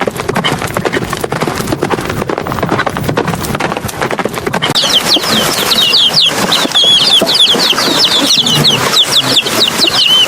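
Animal sounds: a dense run of clattering clicks, joined about halfway through by many quick, high chirps.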